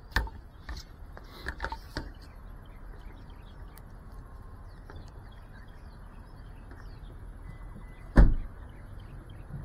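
Knocks from the small FPV drone being handled in the first two seconds, and one loud thump about eight seconds in, over a steady low rumble. Faint bird chirps come through in the gaps. The motors are not running.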